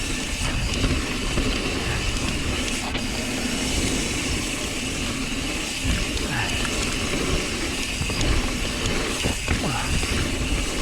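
Mountain bike riding down a dirt trail: steady rushing noise of tyres rolling over the ground, the bike rattling, and wind on the action camera's microphone.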